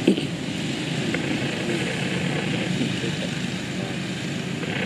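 A steady low rumble of background noise with a steady higher hiss over it, like a distant engine; a brief falling tone comes right at the start.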